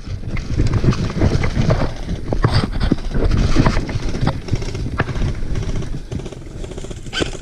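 Footsteps and gear rustling close to the microphone: uneven thuds over a low rumble.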